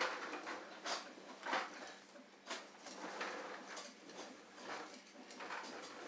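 Plastic toddler push walker rolling and rattling across a vinyl floor, with uneven clacks about once a second.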